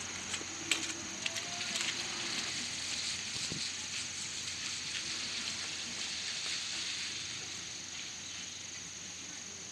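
Steady hiss of rain falling, with a few light clicks and ticks in the first two seconds.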